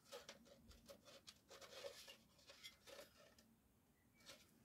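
Near silence with faint, scattered small clicks and light rustling: hands handling and fitting together the parts of a wax warmer lamp.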